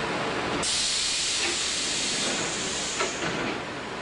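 Compressed air venting from a stationary Shin-Keisei 200 series electric train's air system: a sudden hiss starts about half a second in, runs for about three seconds and fades, with a click near the end.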